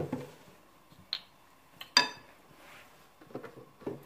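Metal spoon stirring thick chicken marinade in a glass mixing bowl: scattered light knocks of spoon on glass, with one sharp ringing clink about two seconds in.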